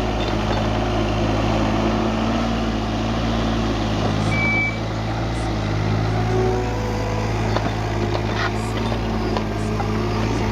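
A motor engine running steadily, a low even drone, with a short high chirp about four and a half seconds in.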